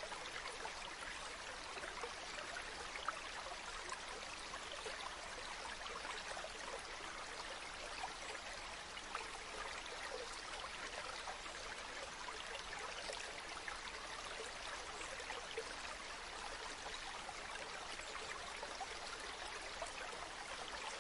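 River stream flowing steadily, a continuous rush of water with small splashing flickers.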